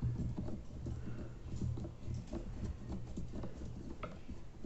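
Screwdriver turning a small screw out of an electric kettle's plastic base, with the base handled in the hands: a run of faint, irregular clicks and scratches, over a steady low hum.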